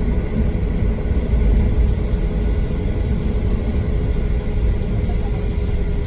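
Steady low rumble of a Boeing 737-700's CFM56-7B turbofan engines and airflow heard inside the cabin, with a faint steady hum running through it.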